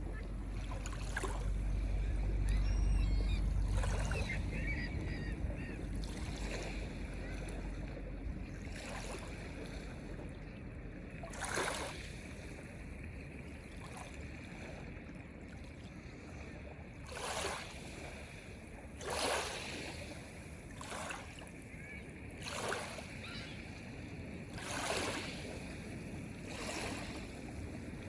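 Sea waves washing and splashing in a run of short surges, one every second or two through the second half. Under them is a low rumble of wind on the microphone, heaviest in the first few seconds.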